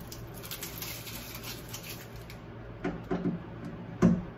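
Plastic- and tape-wrapped wooden battens being pulled off a freshly epoxied plywood bulkhead: a few short wooden knocks in the second half.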